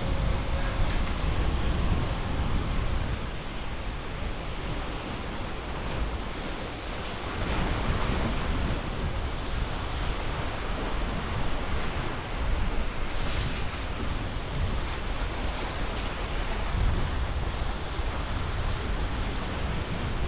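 Wind-driven waves on Lake Garda washing and splashing, rising and falling every few seconds, with wind buffeting the microphone in a low rumble.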